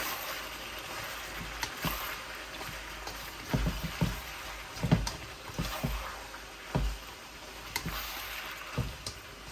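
Quail and holy basil stir-fry still sizzling and bubbling in the pan just after the stove is turned off, a steady hiss broken by a dozen or so light knocks of a utensil against the pan.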